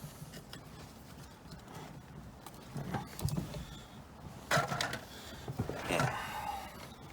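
Small clicks and rustling as hands push the horn wire connectors together, with two louder handling knocks about four and a half and six seconds in.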